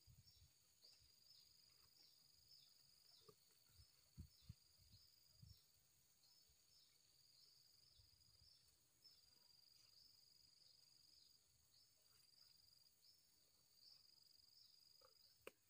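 Faint insect chirping, a short high chirp repeated about twice a second without a break. A few soft low thumps come about four to five seconds in, and a sharp click sounds near the end.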